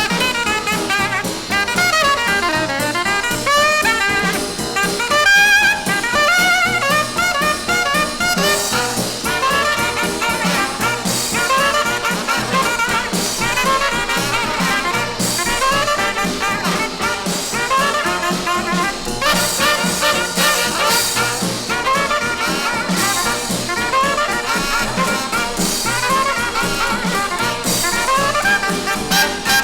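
Jazz music led by brass instruments, playing a busy, fast-moving melody, with the sound growing brighter about eight seconds in.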